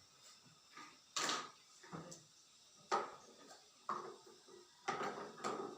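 Feeding-bottle parts being handled and set down, giving about five short knocks and clinks, roughly one a second.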